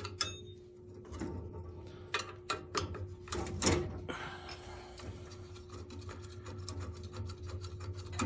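Irregular scraping, rubbing and knocks of hand tools on metal boiler burner parts during cleaning, with a steady low hum underneath.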